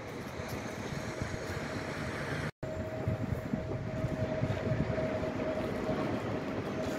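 A train approaching on the line, heard as a steady rumble with a constant whine over it, slowly growing louder. The sound cuts out completely for a split second about two and a half seconds in.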